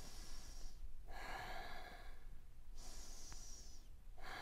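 A man breathing slowly and deliberately during a held yoga pose, several long audible breaths in and out, each about a second or more.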